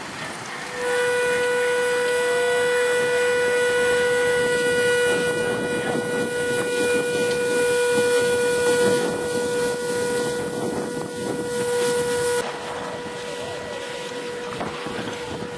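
Steam engine's whistle blowing one long, steady blast with a hiss of steam. It starts about a second in and cuts off suddenly after about eleven seconds.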